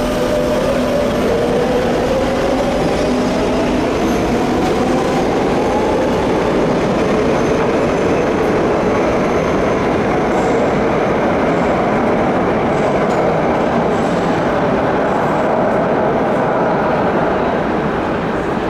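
Metro de Madrid train pulling out of the station: its traction motors whine, rising steadily in pitch over the first few seconds as it speeds up, over a continuous loud rumble of wheels on the rails.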